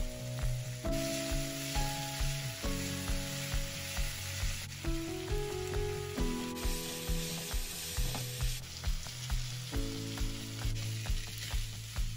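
Background music with a steady beat and held chords, over the sizzle of vegetable fried rice being stir-fried in a pan.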